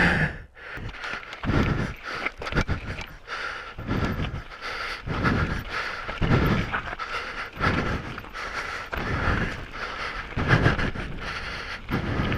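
Heavy, rhythmic breathing close on a microphone in front of the rider's mouth, a big breath out a little more than every second. Through it the mountain bike clatters and knocks over rough trail.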